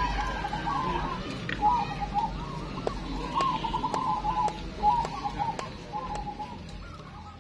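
Many caged zebra doves (perkutut) cooing at once, their rhythmic, warbling coo phrases overlapping one another, with scattered sharp clicks. The sound slowly fades toward the end.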